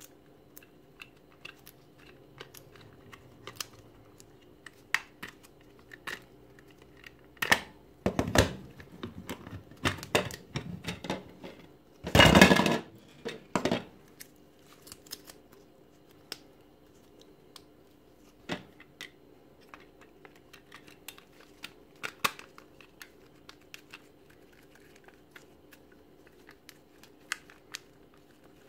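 Handling noise from an 18 V lithium-ion drill battery pack and its plastic case in gloved hands: scattered small clicks and taps of plastic. There is a cluster of louder knocks and rustling about eight seconds in, and the loudest, a brief burst of rubbing, around twelve seconds in.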